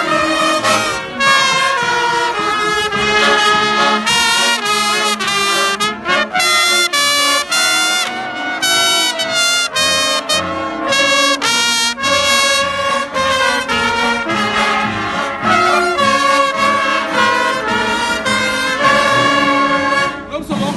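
School brass band playing a march, trumpets carrying the melody in a continuous run of changing notes.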